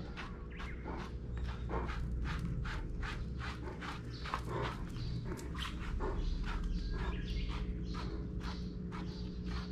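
A dog brush drawn again and again through a Bernese Mountain Dog's long tail fur, quick scratchy strokes about three a second.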